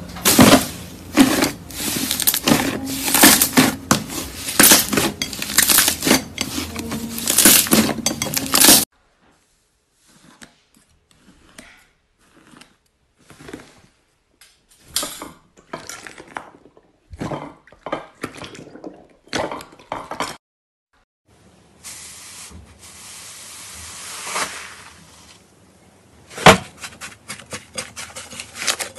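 Metallic foil laid over slime crinkling and crackling densely as hands press it, for about the first nine seconds. After a cut, slime is squeezed and kneaded by hand, with quieter scattered sticky clicks and pops.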